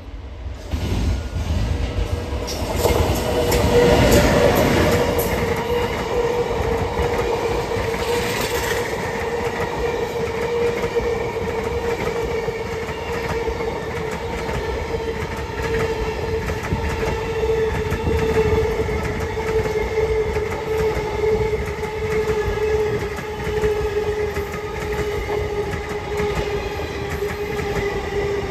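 Diesel-hauled passenger train passing close at high speed. The locomotive goes by with a loud rush about four seconds in, then the coaches rattle past with a clickety-clack of wheels over rail joints. A steady whine runs under the rumble.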